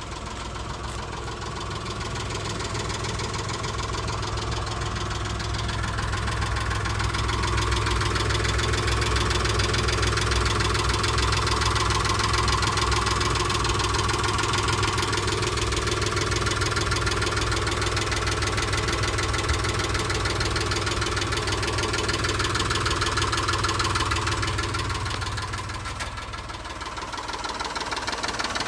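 Mitsubishi Montero engine running at idle with a fast, even ticking or knocking in time with the engine, which the owner suspects is a stuck valve lifter or piston slap. The sound grows louder over the first several seconds and dips briefly near the end.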